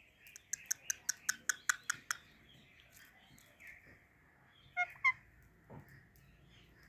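Parrot chirping: a quick run of about nine sharp, high calls, roughly five a second, then two more calls about three seconds later.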